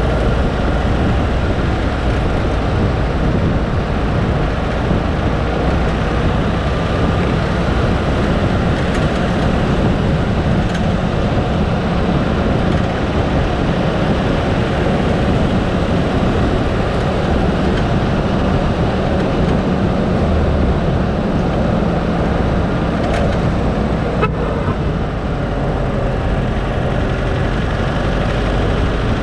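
A car driving steadily, its engine and tyre noise running as an even, unbroken rumble.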